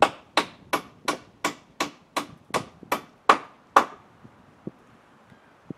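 A hammer driving nails into wooden wall framing: about a dozen evenly paced strikes, roughly three a second, with the last two the loudest. The strikes stop about four seconds in, and only a few faint knocks follow.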